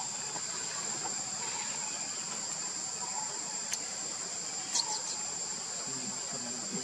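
Steady high-pitched drone of insects, two even tones held throughout. A few faint chirps, a click and a short squeak come through around the middle, and a brief low call comes near the end.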